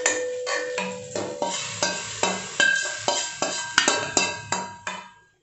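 Background music of short struck or plucked notes at a steady pace, about three a second, cutting off abruptly near the end.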